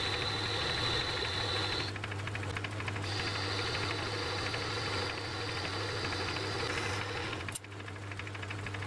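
Metal-turning lathe running and taking a cut on a small rod held in the chuck: a steady motor and gearing hum under a thin high whine that breaks off about two seconds in and comes back slightly higher a second later. A single sharp click about seven and a half seconds in.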